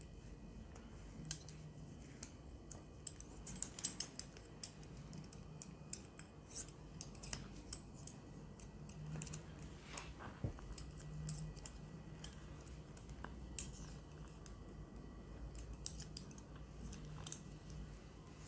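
Metal double-pointed knitting needles clicking against each other at irregular intervals as stitches are worked, with a quick cluster of clicks about four seconds in, over a faint low hum.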